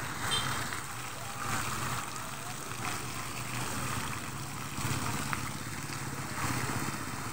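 Water from an illuminated fountain's jets splashing steadily into its basin, with a low steady hum beneath.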